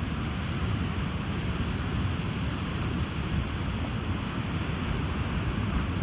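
Ocean surf washing onto a beach, a steady roar with wind buffeting the microphone as a low, fluttering rumble.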